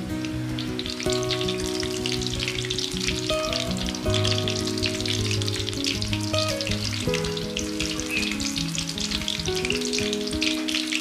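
Fish meatballs frying in hot oil: a dense, steady crackle and sizzle, with soft background music beneath it.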